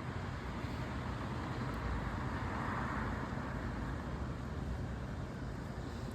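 Steady road traffic noise, with one car's tyres swelling as it passes about two to three seconds in and then fading.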